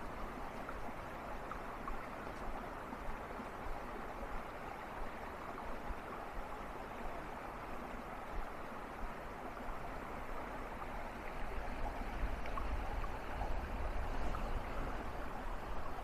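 Small creek running over rocks in a steady rush of water. A low rumble swells in the second half.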